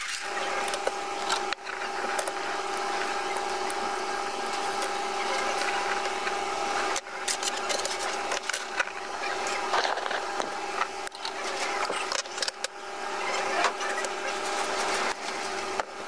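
A steady mechanical hum, with light scratching and clicking as small circuit boards and a hand tool are handled on a tabletop.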